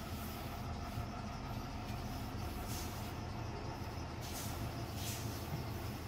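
A steady low mechanical hum, with a few short swishes of a microfiber cloth wiping across the carbon-steel griddle plate.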